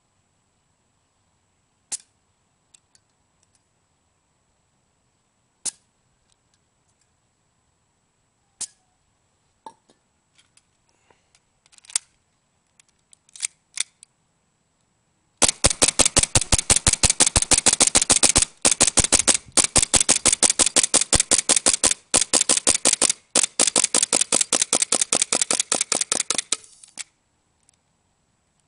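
WE MEU 1911 gas blowback airsoft pistol dry-firing on propane, its slide cycling with each sharp shot. It starts with a few single shots several seconds apart. It then fires rapidly, about five shots a second with a few brief pauses, for about eleven seconds, getting slightly weaker before stopping as the magazine's gas charge runs down.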